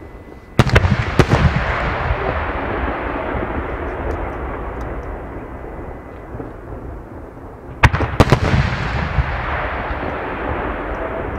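Aerial fireworks shells bursting: a cluster of sharp bangs about half a second in, trailing off into a long echoing rumble, then a second cluster of bangs about eight seconds in that again fades into rumbling.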